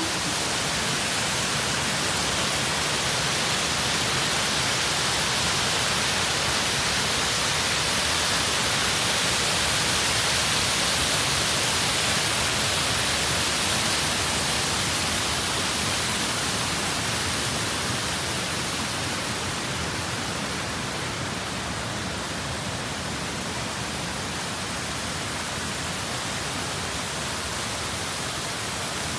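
Shiraito Falls' cascades rushing: a steady hiss of falling water, a little louder for a stretch in the middle.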